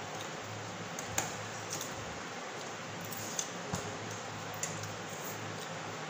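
Eating noodles with forks: scattered small clicks of forks on plates and soft slurping and squishing, over a steady low hum and hiss.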